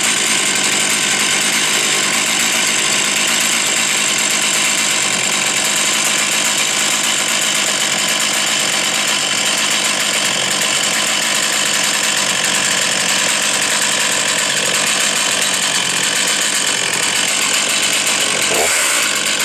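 Chainsaw running continuously, loud and steady, with a brief change in pitch near the end.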